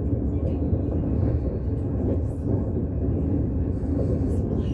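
Steady low rumble of a 25T passenger coach in motion, heard from inside the carriage: wheels running on the rails, with faint light clicks and rattles on top.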